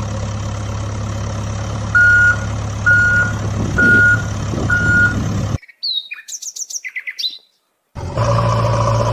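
Steady heavy-vehicle engine drone with a reversing alarm beeping four times about a second apart. The sound then cuts abruptly to a short flurry of bird chirps over silence, and the engine drone resumes near the end. These are sound effects laid over a plastic push-along toy backhoe loader.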